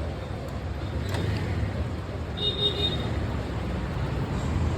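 Steady low rumble of road traffic, with a brief high-pitched beep about two and a half seconds in.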